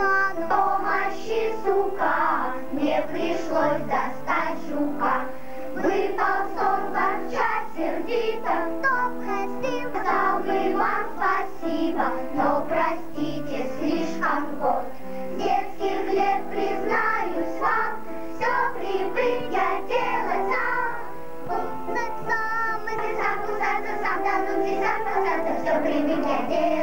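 A children's choir of girls singing a song.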